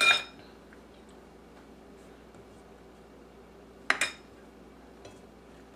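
A utensil clinking against a ceramic dish twice, about four seconds apart, each a sharp clink with a brief ring.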